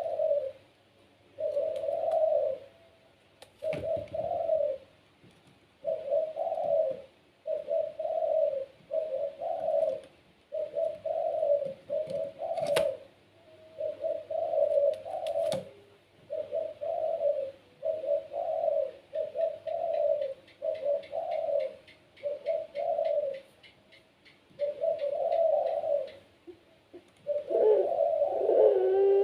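Puter pelung dove (a Barbary dove breed) cooing in a long run of short, deep phrases, about one a second with brief pauses, with a few sharp clicks in between.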